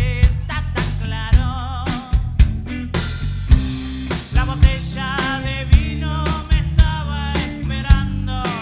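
Rock band playing: drum kit strikes over a steady bass layer, with a wavering melody line on top.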